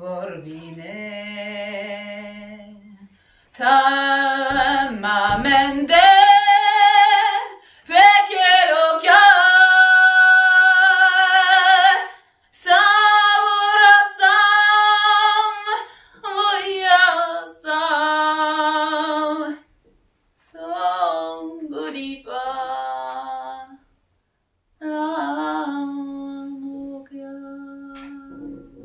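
A woman singing a slow song solo, with long held notes that waver with vibrato, in phrases broken by short pauses for breath.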